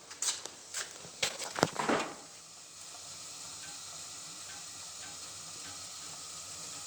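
A few sharp clicks and knocks, then about two and a half seconds in a gas furnace's blower fan starts and runs with a steady rushing sound and a faint regular tick about twice a second.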